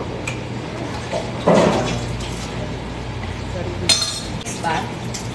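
Kitchen work sounds over a steady ventilation hum: a sharp clink of utensils or dishes just before four seconds in, with voices in the background.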